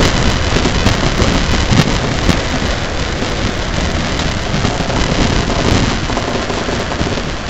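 Wind on the microphone and water rushing along the hull of a racing sailboat under way, a steady loud rush with frequent crackles.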